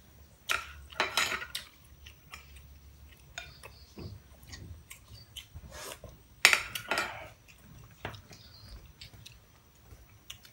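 Metal spoon clinking and scraping against a plate as food is scooped up, in short clatters with scattered lighter taps; the loudest come about half a second in, around a second in, and again about six and a half seconds in.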